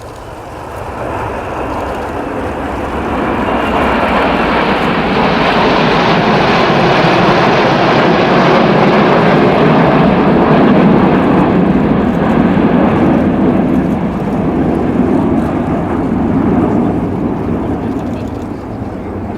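Jet roar of the Avro Vulcan B2 XH558 and the Red Arrows jets passing over in formation. It swells over the first few seconds, holds loudest through the middle and fades toward the end.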